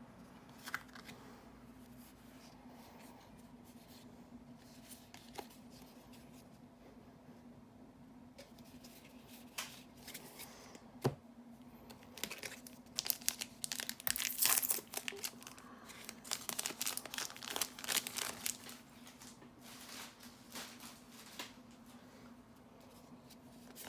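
Foil-wrapped Magic: The Gathering booster pack being torn open and crinkled: a dense run of crackling from about halfway in until near the end, loudest a few seconds after it starts. Before that it is quiet apart from a faint steady low hum and a single click.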